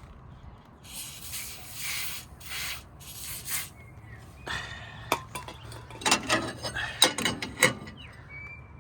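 Aerosol silicone spray hissing in two bursts, a long one then a short one, as the idler pulley parts are lubricated. This is followed by sharp metallic clicks and knocks as the parts are handled and fitted.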